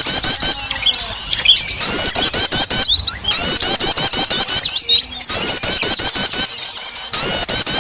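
A loud, busy chorus of many small songbirds chirping fast and overlapping, with a few sliding whistled notes; a noisy lure recording of small birds in commotion, used to draw other small birds in.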